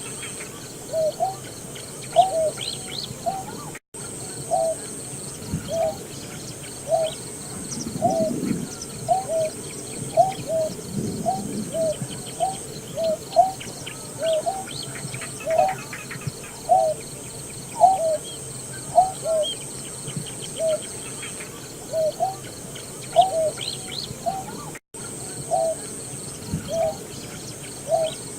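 Greater painted-snipe calling: a long series of short, low hooting notes, each bending up then down, a little over one a second. Faint chirps of other birds sit behind it, and the sound cuts out briefly twice.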